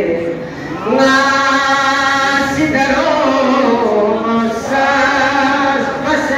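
A man's solo voice chanting a devotional Balti qasida into a microphone, in long held, melodic notes. A short breath break comes just before the first second, then the next line runs on.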